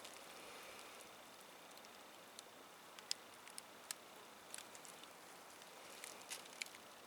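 Near silence: a faint steady hiss with scattered light ticks and crackles.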